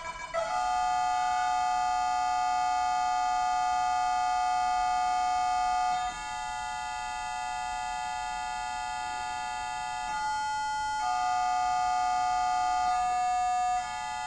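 Two Korg MA-1 electronic metronomes played as instruments. A few quick beeps at the start give way to steady, held electronic tones sounding together. The held pitches change a few times, and one briefly drops out about two-thirds of the way through.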